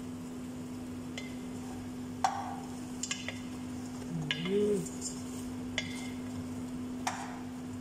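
Long wooden spoon stirring food in an aluminium pot, knocking sharply against the pot about seven times, over a steady low hum. A short wavering tone sounds about halfway through.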